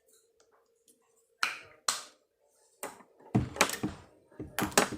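Slime being squeezed and worked by hand, making sharp sticky pops: two single pops near the middle, then a dense run of crackling pops and clicks near the end.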